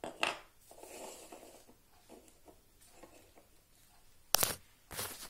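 Wheel center caps being handled and set down on a wooden floor: a few sharp clicks at the start, light scraping and rustling about a second in, then two short knocks near the end.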